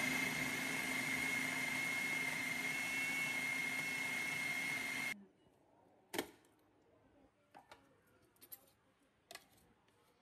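Food processor motor running at speed with a steady high whine, chopping boiled chicken, peas and herbs; it cuts off about five seconds in. A few clicks and knocks follow as the plastic bowl and lid are handled.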